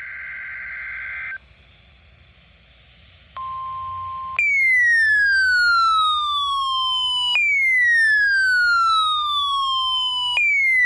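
Weather radio warning alarm tones: a brief electronic data burst of two steady high pitches, a one-second steady beep about three and a half seconds in, then a loud electronic tone sweeping down from high to low, repeated three times about every three seconds, the third cut off near the end.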